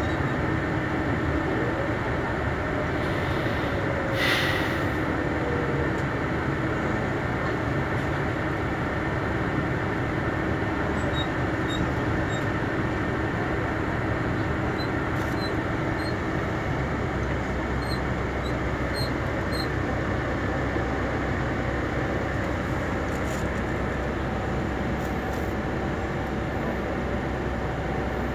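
Steady running noise of an intercity bus heard from inside the passenger cabin: engine and road noise from the moving coach, with a short hiss about four seconds in.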